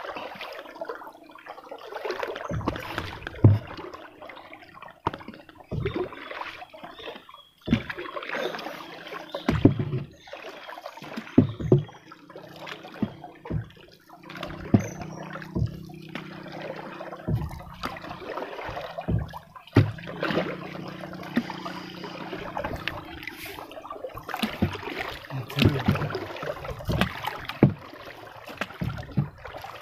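A small wooden boat being paddled on a river: irregular splashes of the paddle in the water, with sharp knocks now and then.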